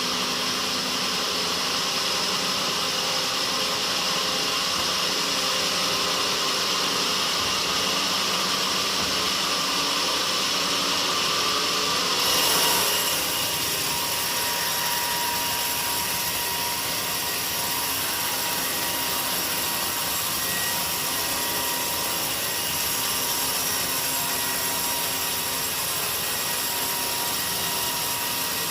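Sawmill saw running steadily through a teak log. About twelve seconds in the sound briefly swells and changes, then carries on with a steady whine.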